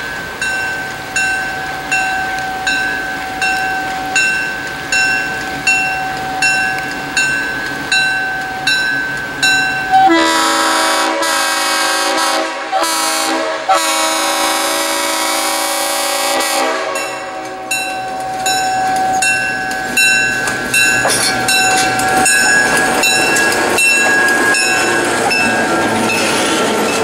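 Grade-crossing bell dinging steadily, then C&O GP7 5833's Leslie RS5T five-chime horn sounding several blasts, the last held about three seconds, as the locomotive nears the crossing. The bell keeps dinging as the diesel and its passenger cars pass close by with wheel clatter.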